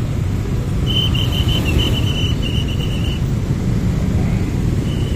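Motorcycle and car engines idling in a stalled traffic jam: a steady low rumble. About a second in, a thin, high pulsing tone sounds for about two seconds, and it returns briefly near the end.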